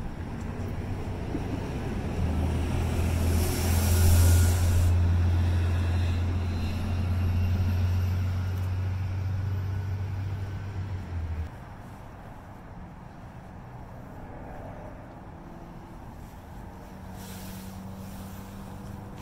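Low, steady rumble of road traffic with a vehicle engine running, swelling with a hiss a few seconds in, then stopping abruptly a little past halfway. Fainter steady street noise follows.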